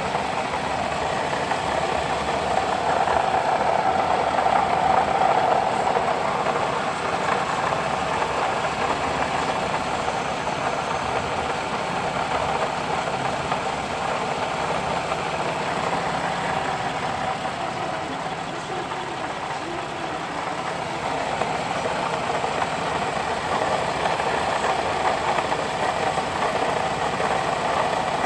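Porsche Cayman engine idling steadily with an abnormal mechanical noise, apparently coming from a failing water pump.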